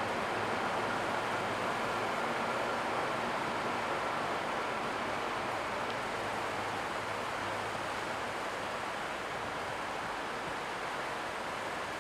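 Train moving through the station: a steady rushing noise with a faint high whine and a low hum, slowly getting quieter.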